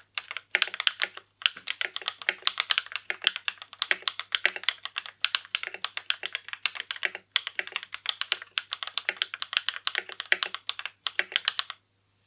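Typing on an Apos Kono67 mechanical keyboard: a steady run of keystrokes with a few short pauses, stopping near the end.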